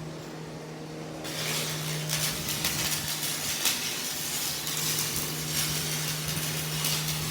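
Electric arc welding: about a second in, the arc is struck and keeps up a continuous crackling hiss over a steady low hum.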